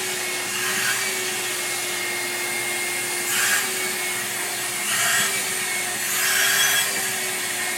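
Vacuum cleaner running steadily with a constant hum while its nozzle is worked over a cat's fur. The hiss swells briefly about three times.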